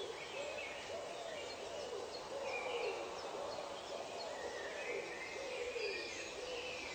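Nature soundscape of wild animal calls: a low hooting call repeats every half second or so, each one rising then falling, over higher bird chirps and short ticking calls.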